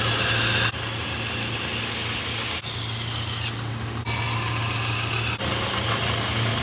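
Belt sander running with a steady motor hum while a knife blade is ground against the belt to form its bevel. The hiss of the grind shifts in strength every second or two as the blade is worked along.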